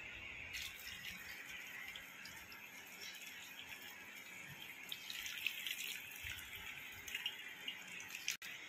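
Hot cooking water and boiled amaranth leaves poured from a pot into a plastic colander, with a faint steady splashing as the water drains through and a few small knocks.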